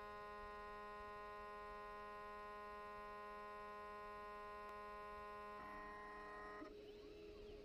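Hobby CNC router cutting into a wooden board: a steady whine of several tones over a low hum from its stepper motors and spindle. The tones shift about five and a half seconds in and again a second later, with a sliding rise and fall in pitch near the end as the machine's motion changes.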